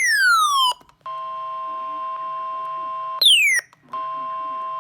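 Electronic severe-weather alert tone: a falling sweep, then a steady two-tone chord held for about two seconds, then another shorter falling sweep and the chord again. It signals that a severe weather bulletin is about to be read.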